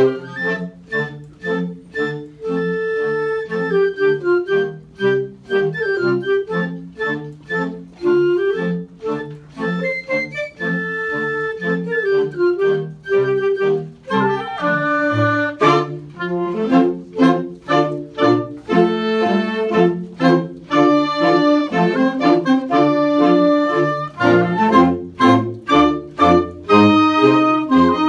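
Woodwind choir of clarinets playing a march: short detached low notes keep a steady beat under a melody and held chords, the texture changing about halfway through.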